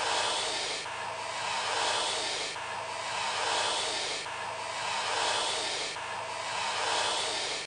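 Looped snake-hiss sound effect: a steady hiss that swells and fades about every second and three-quarters.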